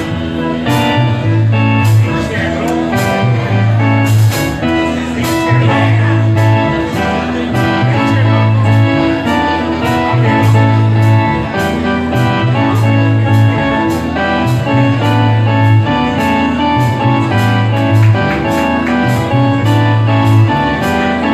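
Live rock band playing, loud: a bass figure repeats about every two seconds under steady cymbal strokes, with keyboard over it.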